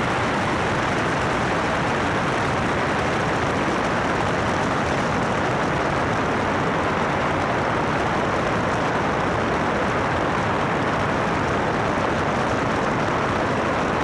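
Steady, unchanging rushing noise of a single-engine light airplane in cruise flight, with airflow blowing over a camera mounted outside on the fuselage.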